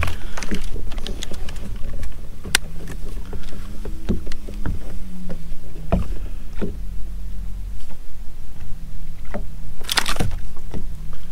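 Steady low rumble of wind on the microphone under a faint low hum on a boat deck, with scattered sharp clicks and knocks as a largemouth bass is handled and weighed.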